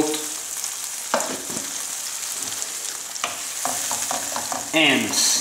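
Cream sauce with bacon and onion sizzling in a frying pan on low heat while a wooden spoon stirs it, with two light knocks along the way.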